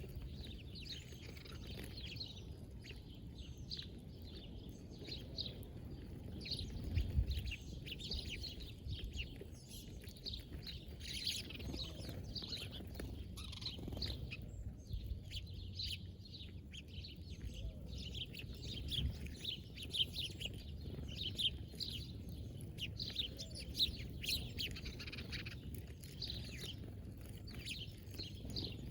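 Small birds chirping: many short, high chirps in quick runs, over a low rumble that swells briefly about seven seconds in.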